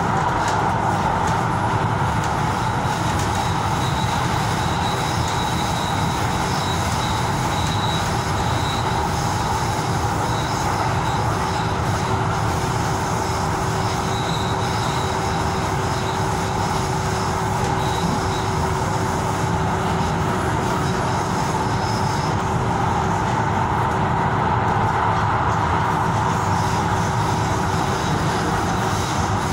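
Tyne and Wear Metro train running, heard from inside the carriage: a steady rumble of wheels on rail with motor hum. A faint high wheel squeal comes and goes in the first half as the train rounds a curve.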